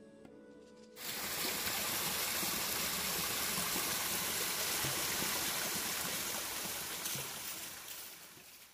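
Creek water flowing over a small log jam: a steady, even rushing that starts abruptly about a second in and fades out near the end.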